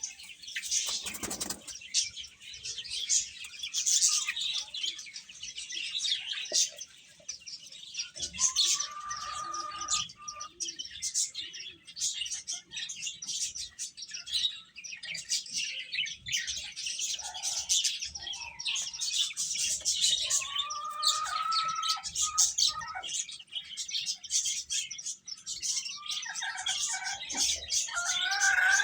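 A group of domestic chicks peeping continuously with dense, high-pitched chirps. A few lower, longer calls stand out about a third of the way in, around two-thirds of the way in, and near the end.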